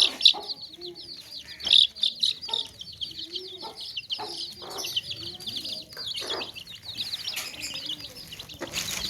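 A crowd of baby chicks peeping without pause, many short high chirps overlapping one another. Now and then a louder, lower clucking and a few knocks break in, the loudest near the start and about two seconds in.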